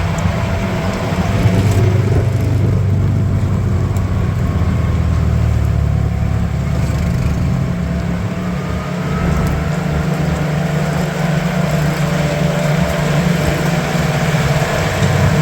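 A motor vehicle's engine running steadily, with a faint whine rising in pitch about nine seconds in.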